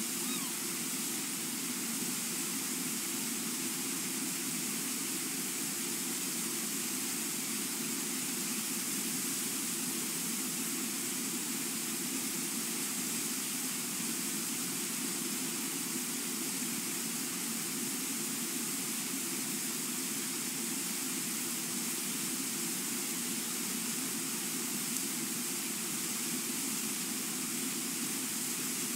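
Brooks Falls: the steady, unbroken rush of the river pouring over the falls.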